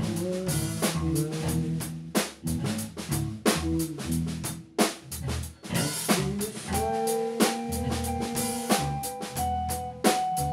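Live rock jam: a drum kit and an electric bass guitar play together. About two-thirds of the way in, a held pitched tone joins over them.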